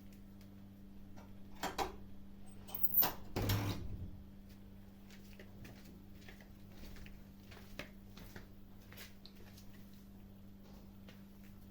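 Kittens chewing and crunching food, irregular small clicks and crunches, with a louder knock and clatter about three seconds in over a steady low hum.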